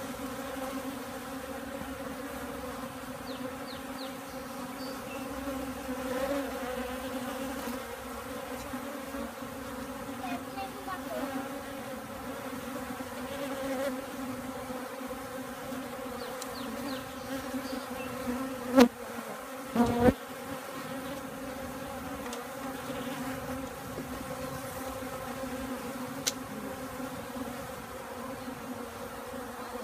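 Honeybees buzzing steadily at close range, a hum held on one pitch with overtones. Two sharp knocks just over a second apart, about two-thirds of the way through, are the loudest sounds.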